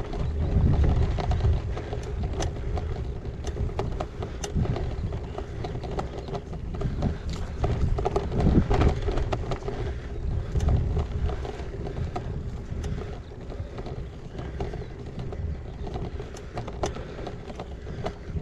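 Gravel bike riding over a rough track: a steady low rumble of tyres and wind on the microphone, with frequent knocks and rattles as the bike jolts over stones.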